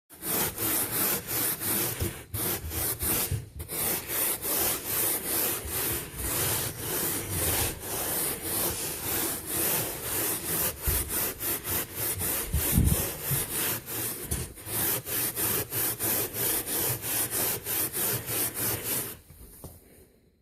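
Rhythmic back-and-forth scrubbing of carpet, about three strokes a second, stopping about a second before the end.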